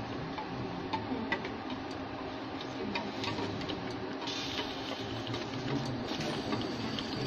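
A spoon scraping and tapping against a plastic bowl as ground tomato is emptied into a stainless steel pan: a scatter of light, irregular clicks, with a brief hiss a little over four seconds in.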